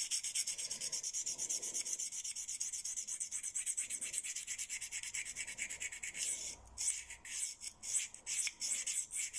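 Knife blade scraping across a hand-held diamond sharpening stone in quick strokes, about seven a second, turning into slower, uneven strokes after about six seconds. The edge is being worked to raise a burr along a stretch that has not yet come up to an apex.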